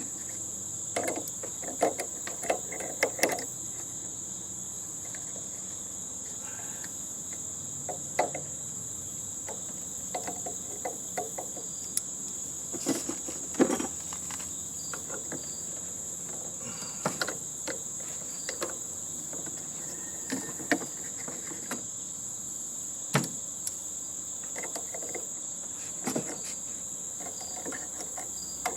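Scattered clicks, clanks and knocks of tools and sheet-metal parts being handled while a heating and air-conditioning unit is taken apart, over a steady high-pitched chirring of crickets.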